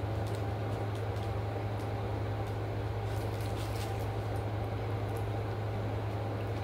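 A steady low machine hum, unchanging throughout. About three to four seconds in there are a few faint clicks and rustles of plastic utensils and food wrappers.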